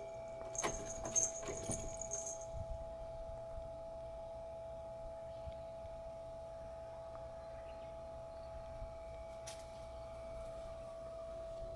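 Cats climbing and pawing at the netting of a wooden cat enclosure: a brief high jingle with light rattling and clicks from about half a second to two and a half seconds in, then only scattered faint clicks. A steady faint hum runs underneath.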